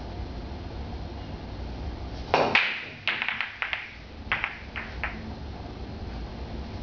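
Pool break shot: a loud, sharp clack about two and a half seconds in as the cue ball smashes into the racked balls, then a quick run of lighter clicks over the next two seconds as the scattering balls strike one another.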